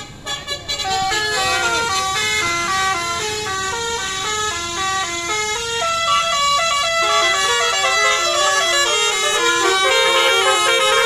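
A tour bus's multi-note 'telolet' air horn playing a quick tune, its notes changing pitch several times a second. A couple of rising-and-falling swoops in pitch come in the first two seconds, and the tune grows a little louder toward the end.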